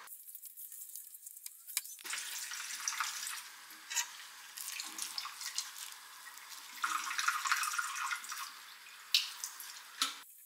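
Wet squishing and scraping of a ground-meat patty mixture being scooped from a stainless steel bowl with a spoon and pressed into patties, with small sharp clicks of the spoon on the bowl. It starts about two seconds in.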